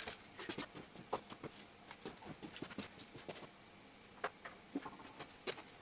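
Faint, scattered clicks and light knocks of hand tools and parts being handled, thick in the first three and a half seconds and then only a few single clicks.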